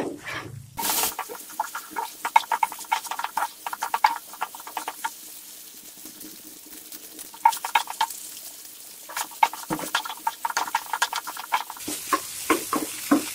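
Beef pieces frying on high heat in a pan, its liquid cooked off, sizzling with a steady hiss and quick crackles, while a wooden spatula scrapes and taps as it stirs. The stirring comes in bouts, easing for a couple of seconds midway.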